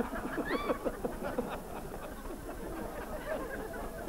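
Scattered laughter and murmuring from a studio audience, with a few quick rising laughs about half a second in.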